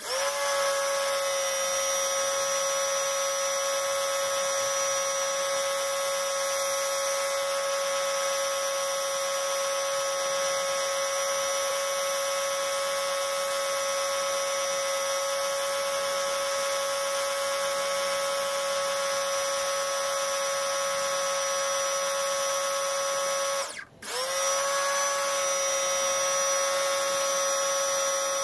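Bosch Aquatak 125 electric pressure washer running under load: a steady high whine from its motor and pump over the hiss of the narrow water jet striking concrete. It comes up to speed at the start, cuts out for a moment near the end and rises back to speed.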